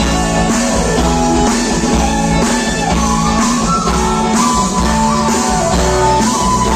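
Live rock band playing an instrumental passage: a guitar melody over steady bass notes and a drum kit, with no singing.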